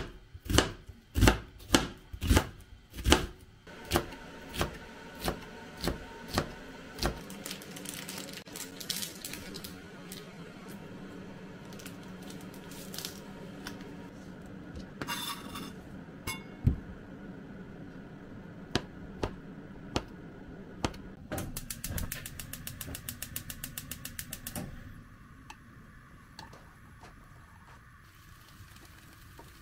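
Kitchen knife chopping an onion on a plastic cutting board: sharp knocks about two a second for the first few seconds, then softer, sparser cuts. Near the end comes a few seconds of fast, even clicking.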